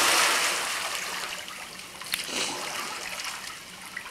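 Splash of a person plunging into a swimming pool, the churning water loudest at first and fading over about two seconds into quieter sloshing as he swims.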